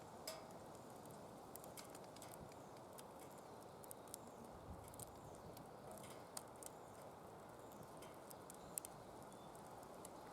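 Wood fire burning in a DOD Mecha Moe Fire secondary-combustion fire pit: irregular sharp crackles and pops over a soft steady rush.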